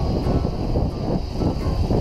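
Wind buffeting the microphone over the rush of water along the hull of a Tartan 37 sailboat under sail in lumpy seas.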